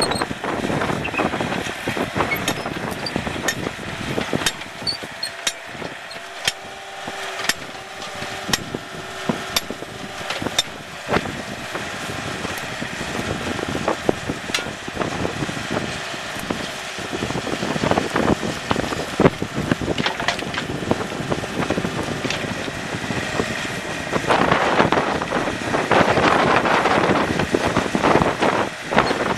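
Diesel engine of a Yanmar mini excavator running as it digs, with frequent sharp knocks and clinks of spades and the bucket striking stony soil. A louder stretch of noise comes near the end.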